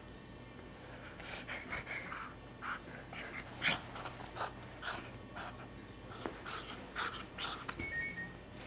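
Chocolate Labrador retriever puppy chewing and mouthing a rope toy: a quick, irregular run of short chewing noises.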